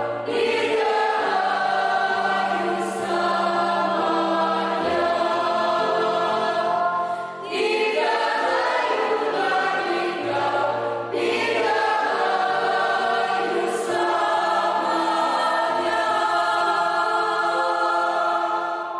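A mixed choir of men's and women's voices singing in harmony in long held chords, with a brief break for breath about seven seconds in.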